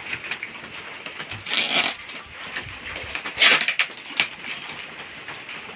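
Crinkling of plastic packaging wrapping being handled and pulled open, in two loud bursts about a second and a half in and near three and a half seconds, with a sharp click soon after.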